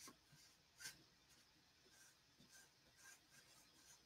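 Paintbrush stroking paint onto a wooden stool: a few faint, short brushing scratches with near silence between them.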